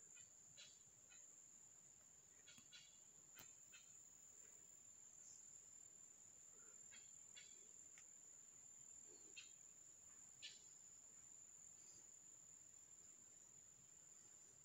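A faint, steady high-pitched insect trill, with a scattering of short soft ticks and rustles.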